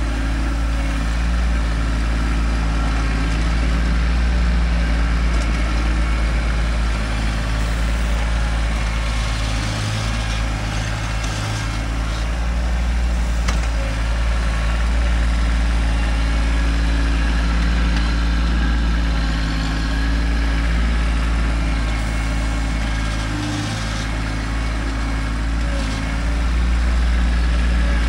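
Kubota tractor's diesel engine running steadily while pushing dirt, its note swelling and easing a little, with a few faint clanks.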